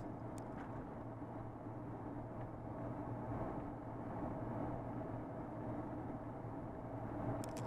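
Steady engine and road noise of a vehicle driving, a low even hum.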